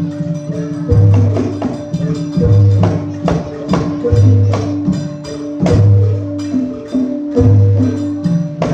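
Javanese jathilan gamelan music played loud through a sound system: struck metal percussion and sharp drum strokes over a deep gong-like note that recurs about every second and a half.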